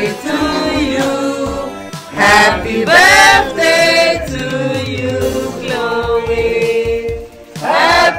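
A group of people singing together, a girl's voice among them, with sung notes held and gliding and a short break about two-thirds of the way in.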